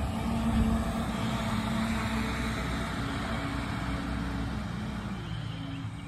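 Concrete mixer truck's diesel engine running as the truck drives away, its sound slowly fading as it moves off.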